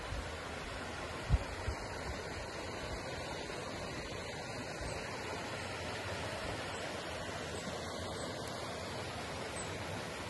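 Steady rushing of a river running over rocks, with a brief low bump about a second and a half in.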